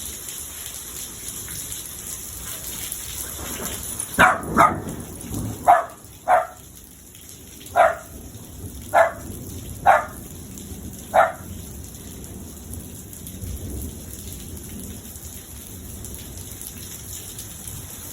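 Steady rain falling, with a dog barking eight times in short, single barks starting about four seconds in and stopping around eleven seconds.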